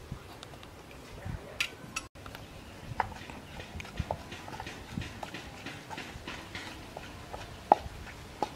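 Wooden pestle pounding in a mortar: irregular knocks, one or two a second, each with a short ring, the loudest near the end.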